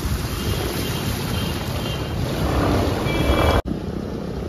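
A scooter riding through a flooded road in heavy rain: water splashing up from the tyres, with wind rumbling on the microphone. The noise builds a little around three seconds in, then drops suddenly to a quieter stretch.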